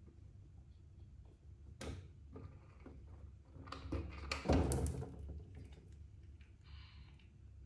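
A cat's paws knocking and scraping on a large plastic water bottle: a single tap about two seconds in, then a cluster of louder knocks and rubbing a little past the middle.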